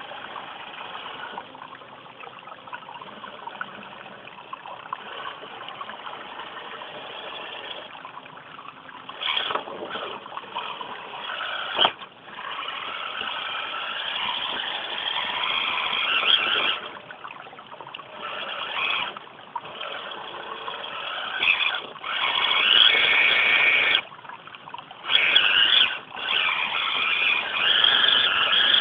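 Electric motor and gear drive of an RC rock crawler whining in stop-start bursts as the throttle is worked, the bursts louder and longer near the end.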